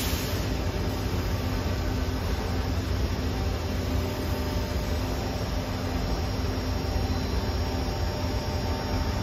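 Steady low hum and rumble of background machinery, with a light hiss and no distinct clicks or knocks.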